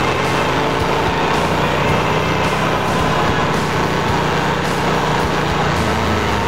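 2007 Moto Guzzi Griso 1100's air-cooled V-twin engine running steadily under way through curves, its note dropping lower near the end as the revs fall.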